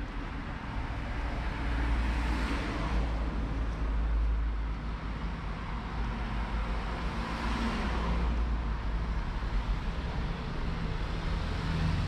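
Road traffic: cars passing close by, heard as two swells of engine and tyre noise that rise and fade, one about two seconds in and another around seven to eight seconds in, over a steady low rumble.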